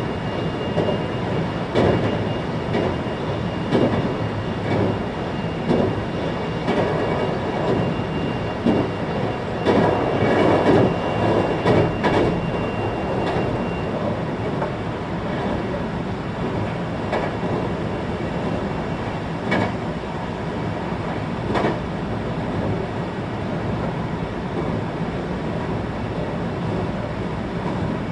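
A 521-series electric multiple unit running at speed, heard from inside the passenger car: a steady rolling rumble with irregular wheel clacks over rail joints. A thin high whine stops about halfway through.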